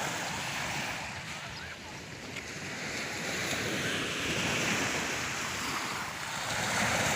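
Sea waves breaking and washing on the shore, the surf noise swelling and easing, with wind buffeting the microphone.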